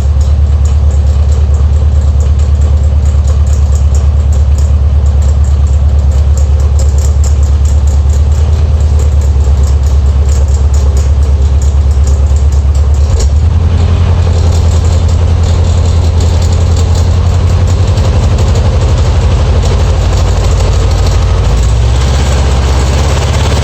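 Air-cooled VW Beetle flat-four engine running steadily, heard up close, with an abnormal noise from around the alternator pulley that the owner links to an off-centre pulley. The sound changes about halfway through, with more rattly mid-range noise after the change.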